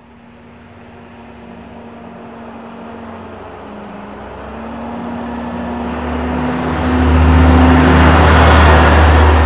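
Bucher Duro 6x6 military truck's diesel engine and tyres as it approaches and passes close by. It grows steadily louder, with the engine's low running note and tyre noise peaking over the last few seconds as it goes past.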